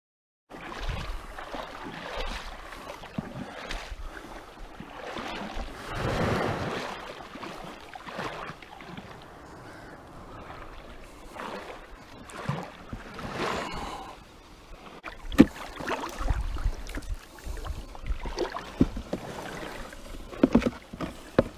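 Water sloshing and lapping with uneven swells, and wind buffeting the microphone in the later part.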